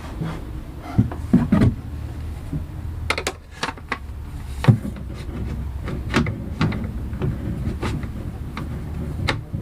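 A ceiling fan being handled and spun to check the balance of its blades: scattered clicks and knocks over a steady low hum.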